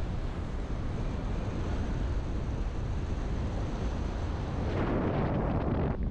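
Wind rushing over a GoPro's microphone in paraglider flight, a steady low rumble that swells into a louder, rougher rush for about a second near the end.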